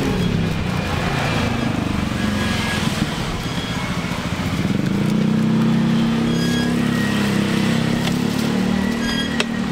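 A motor vehicle's engine running close by, its low hum wavering in pitch at first and then holding steady for the last few seconds. A sharp click comes near the end.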